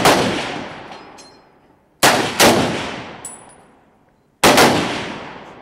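Rifle shots from a firing line: five sharp cracks, in close pairs about two seconds apart, each dying away in a long echoing tail.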